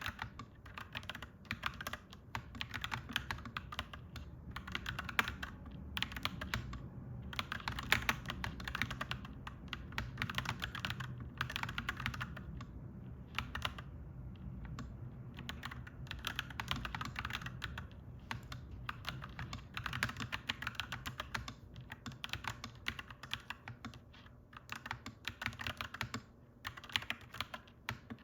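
Clacky mechanical keyboard being typed on in quick runs of keystrokes, broken by brief pauses, over a steady low rumble.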